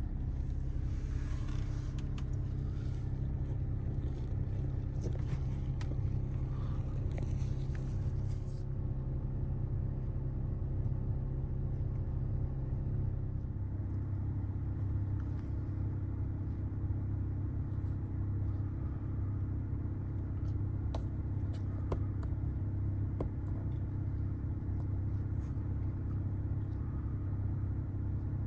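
Steady low rumble of a Nissan Serena e-POWER, heard from inside the vehicle, with a high hiss that stops about eight seconds in and a shift in the hum's pitch about halfway through.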